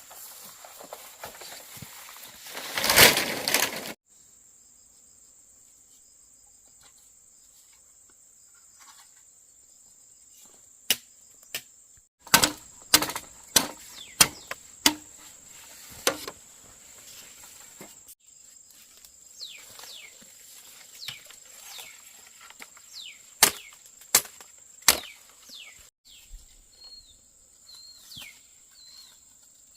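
Insects buzzing in a steady high drone, broken by a series of sharp knocks, with a loud rush of noise in the first few seconds and short falling bird chirps later on.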